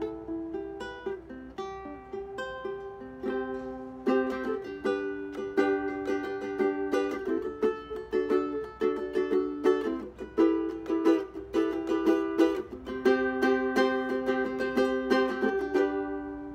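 All-mahogany BWS tenor ukulele played fingerstyle: a melody of single plucked notes that grows fuller with chords about four seconds in. The last notes ring out and fade near the end.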